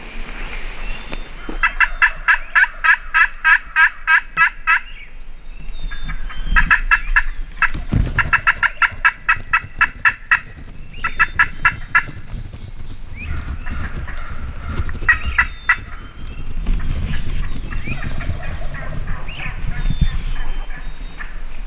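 Turkey yelps in quick, evenly spaced runs, the longest lasting about three seconds near the start, then several shorter runs. Low rustling and a thump come about eight seconds in, with more rustling in the last few seconds.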